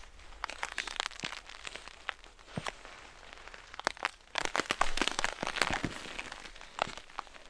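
Irregular crunching and crinkling as a tarp is handled and guyed out on snow, with a busier stretch about four and a half seconds in.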